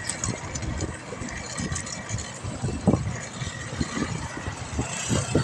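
Wind buffeting a microphone that is moving along a road, giving irregular low rumbles and gusts over road noise.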